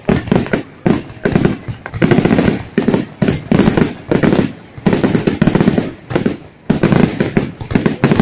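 Fireworks going off: rapid strings of sharp cracks and bangs in dense clusters, each a second or two long with short pauses between.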